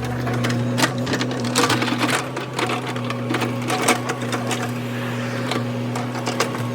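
Mini excavator engine running at a steady speed, with a scattered run of knocks and clicks from the bucket working in the ground.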